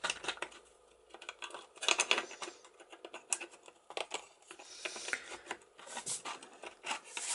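Small metal parts of a sailboat cabin door lock clicking and tapping as the latch bolt is pushed and the handle follower turned by hand; irregular sharp clicks throughout, with a brief lull about a second in.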